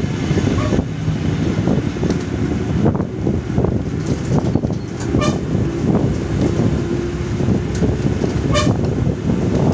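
Bus engine running with road noise and frequent small knocks, heard at a side window. A horn gives two short toots, about five and eight and a half seconds in.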